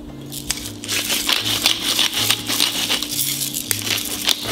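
Spice mill grinding seasoning, a dry gritty crackle of many fine clicks that starts about a second in, over faint background music.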